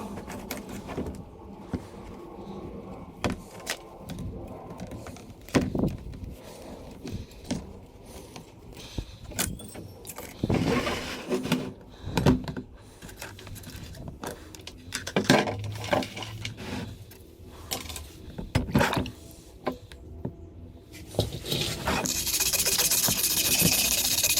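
Scattered clinks, knocks and scrapes of metal being handled, then near the end a loud steady hissing noise starts up, like a power tool running.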